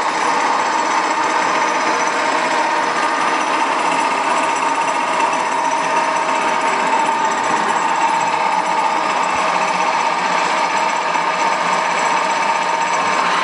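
KLOPP knee-type milling machine running, its spindle and gear drive giving a steady, dense mechanical whir and rattle with a constant high hum.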